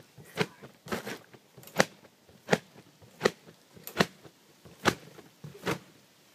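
A Pure Fun backyard trampoline thumping under a child's steady bouncing: a sharp landing on the mat about every three-quarters of a second, eight or nine times.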